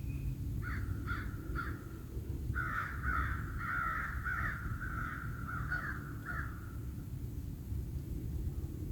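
A bird calling: three short calls about a second in, then a longer run of quick repeated calls lasting about four seconds, over a steady low rumble.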